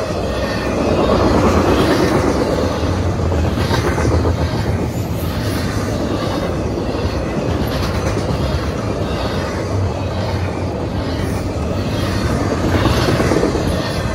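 Intermodal freight train's container cars rolling steadily past on the rails: a continuous heavy rumble and hiss of steel wheels, with wheels clacking now and then.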